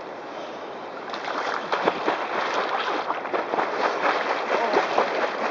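A person plunging into shallow floodwater and splashing through it. A steady rush of water becomes loud, dense splashing about a second in, with many small splashes in quick succession.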